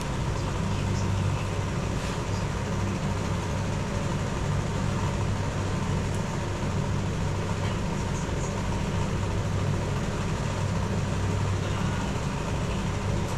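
A steady low mechanical hum, with a few faint clicks now and then.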